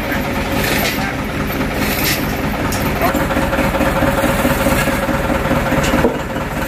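A Kato crawler excavator's diesel engine running steadily, its throb growing a little louder about three seconds in, with a steady whine over it and a few sharp knocks.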